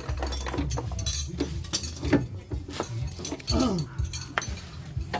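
Scattered metallic clinks and knocks of hand tools and car parts over a steady low hum, during drive shaft repair work.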